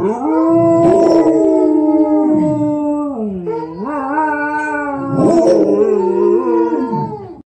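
Dogs howling together in long, drawn-out howls. The pitch dips about halfway through, rises again, and the howling stops just before the end.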